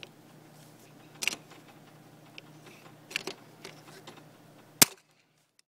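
Hand pop-rivet tool being squeezed to set a rivet through an RV awning's torsion assembly end cap. It clicks about a second in and again around three seconds in, then gives one sharp, loud snap near the end as the rivet's mandrel breaks off.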